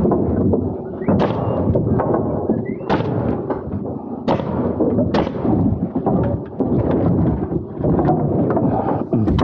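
Pneumatic framing nailer driving nails into 2x4 lumber: four sharp shots between about one and five seconds in, over a steady rumble.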